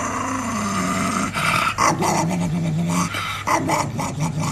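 Small long-haired dog growling in a run of short, low grumbles, on and off.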